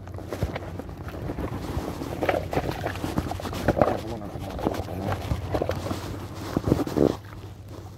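Wind buffeting the microphone as a steady low rumble, with irregular short rustles and knocks on top, the loudest about four and seven seconds in.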